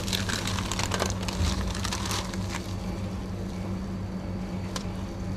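Baking paper and disposable plastic gloves rustling and crinkling in short rustles as a tray of nachos is handled, mostly in the first half, with a single sharp click near the end. A steady low hum runs underneath.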